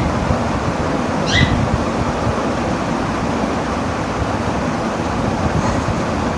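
Steady rushing background noise with one short, high chirp about a second and a half in.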